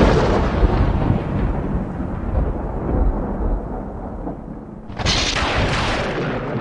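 Loud radio static hissing from a hacked radio. It fades over the first few seconds, surges again suddenly about five seconds in, then fades once more.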